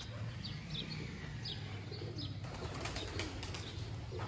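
Small birds chirping: short, high, falling chirps a few times a second, over a low steady hum. A brief rustling clatter comes a little past halfway.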